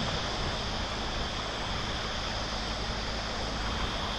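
Shallow river running over stones and gravel: a steady wash of flowing water.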